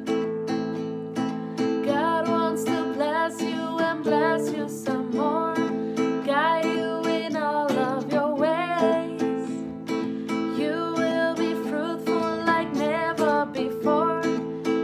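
Classical guitar strummed in a steady rhythm, with a woman singing the melody over it.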